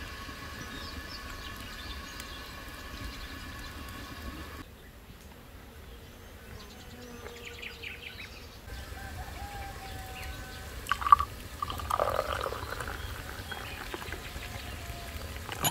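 Herbal tea poured from a glass teapot into a glass tumbler: a sharp clink about eleven seconds in, then the splashing trickle of tea filling the glass. Birds chirp in the background.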